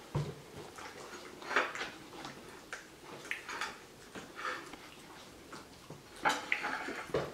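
Two small terriers licking and chewing food from china plates on a glass tabletop: a string of short irregular wet smacks, with the plates clinking and scraping on the glass. The loudest bursts come about a second and a half in and again just past six seconds.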